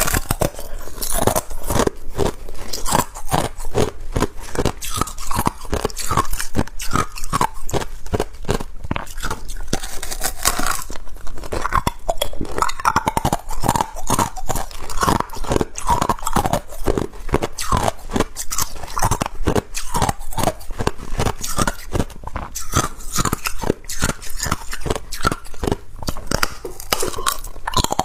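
Ice being bitten and chewed close to the microphone: a steady run of sharp, rapid crunches, several a second.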